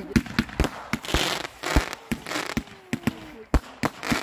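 Fireworks going off in quick succession: more than a dozen sharp bangs at uneven intervals as shells launch and burst, with short spells of hissing crackle between them.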